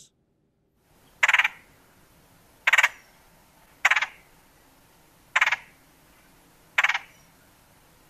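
Red-headed woodpecker giving its rattle call: five short, rasping bursts about a second and a half apart, each lasting about a quarter second. These rattles are calls it uses to keep in touch with members of its family.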